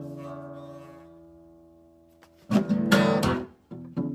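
Acoustic blues guitar: a chord rings and fades away over about two seconds, then a few hard strums come about halfway through.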